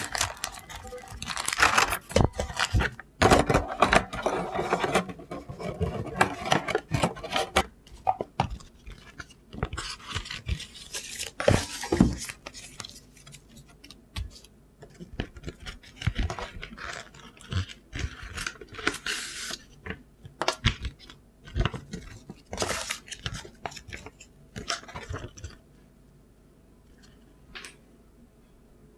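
Packaging and small objects handled by hand: irregular rustling, crinkling and scraping with light knocks and clicks, dying away about 26 seconds in.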